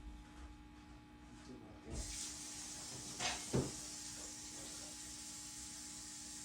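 Tap water starts running about two seconds in and keeps running steadily, with a couple of knocks shortly after, as the carpet cleaner's water tank is filled.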